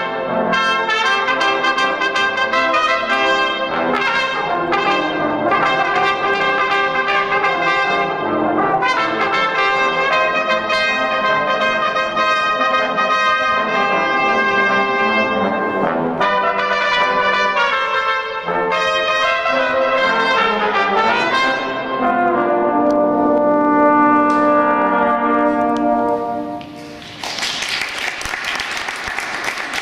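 Two trumpets playing a lively tune over a band with drums, closing on a long held final chord a few seconds before the end. The audience then breaks into applause.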